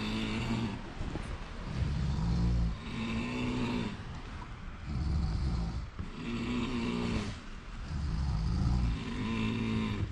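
A person snoring, a rattling snore with a low buzzing note about every two seconds.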